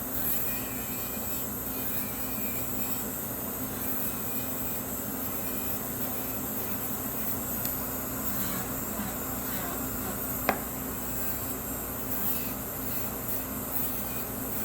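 Electric nail file (e-file) running steadily in reverse, a constant motor hum and whine as it files gel product off a nail. One sharp click about ten seconds in.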